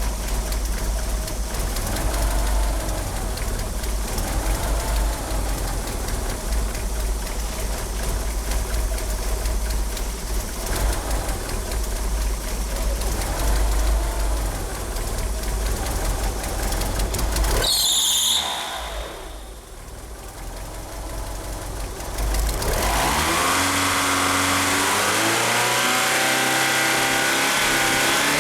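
Mitsubishi Eclipse GSX turbo four-cylinder engine running rough and uneven, with a rich, stumbling idle from oversized 850cc injectors. A brief high squeal comes about two-thirds of the way in, typical of the slipping power-steering pump belt. After a few quieter seconds the engine settles into a steadier note that rises in pitch and then holds.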